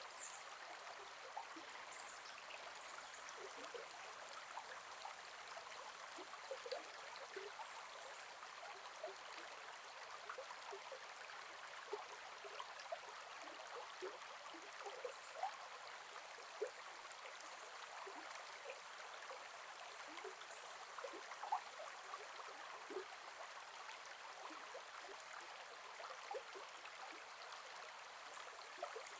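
Gentle forest river flowing: a steady rush of water with scattered small gurgles and splashes over stones.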